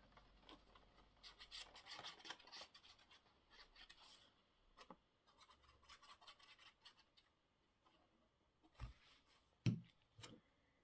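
Faint rubbing and rustling of paper being glued down by hand, with three soft knocks near the end.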